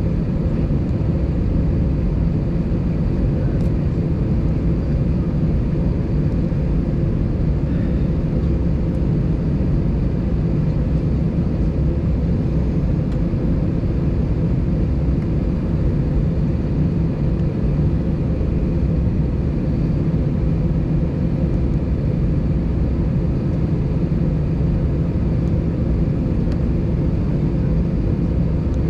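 Steady low drone inside the cabin of an Airbus A320 airliner standing with its engines idling, the engines and cabin air system running unchanged throughout.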